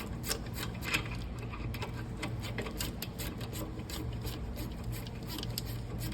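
Quick, irregular metallic clicking and clinking of a hand ratchet and tools working a brake caliper bolt, over a steady low hum.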